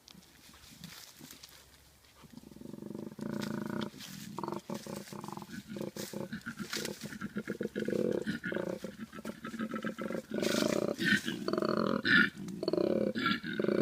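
Male koala bellowing, the mating-season territorial challenge call. A low, rapidly pulsing bellow starts about two seconds in and grows louder, with harsher bursts near the end.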